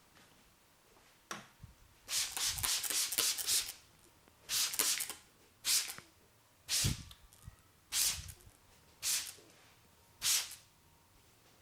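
Hair-cracking in a head massage: tufts of hair pulled and rubbed between the fingers close to the microphone, giving crackling rustles. One long crackling rustle comes about two seconds in, then six short bursts follow roughly once a second.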